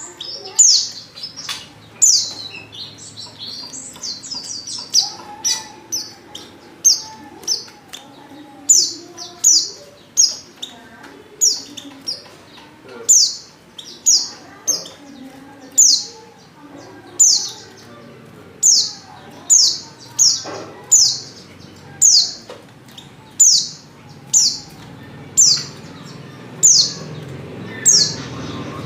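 Female white-eye (pleci) calling over and over: short, high, downward-sliding calls, a little more than one a second, the kind of call used as a lure to set male white-eyes singing.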